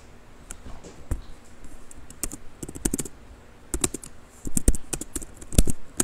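Keys being typed on a computer keyboard close to the microphone: irregular clicks in short bursts, with two heavier knocks in the second half.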